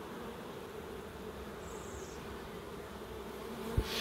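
Honeybees humming steadily over an open hive of a very populous colony, a frame crowded with bees held above the box. A single knock sounds near the end.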